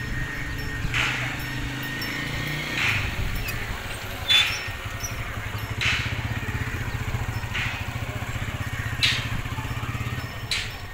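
A steady low engine hum with a fine rapid pulse, like a small motor running. Over it come soft scuffing strokes about every one and a half seconds.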